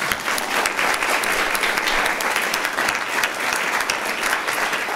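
Congregation applauding: many people clapping together, steady and sustained.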